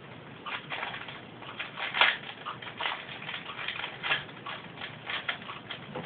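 A plastic 4x4x4 Rubik's Cube being turned by hand: quick clicking and clacking of its layers in irregular bursts, loudest about two seconds in.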